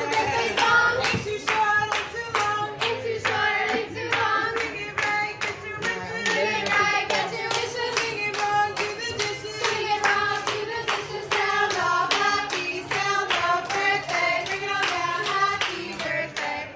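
Several women singing a birthday chant together in unison while clapping a steady, quick beat.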